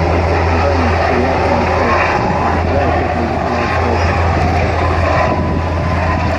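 Irish Coast Guard Sikorsky S-92 search-and-rescue helicopter flying low over the sea, a steady low drone of rotor and engines mixed with the rush of surf and wind.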